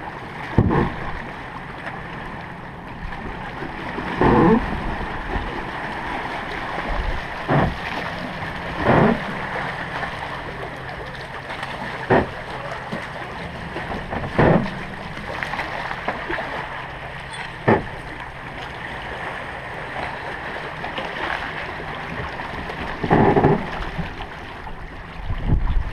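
Small waves lapping and splashing against the pebble shore at the waterline, a splash every few seconds at uneven intervals over a steady rushing background.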